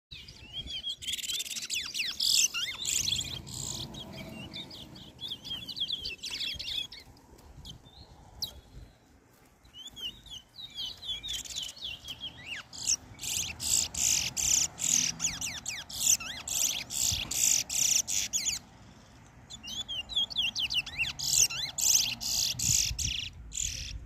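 Caged brown towa-towa (chestnut-bellied seed-finch) singing in long bursts of quick, repeated high chattering notes. The song pauses briefly about a third of the way in and again near the end.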